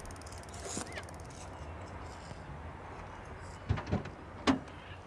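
A clipboard with a metal clip being handled in a car: three short clicks and knocks, the loudest near the end, over a low steady hum.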